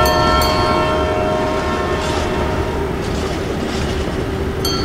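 Train horn blowing one held blast for about two seconds, then the steady rushing rumble of a running train.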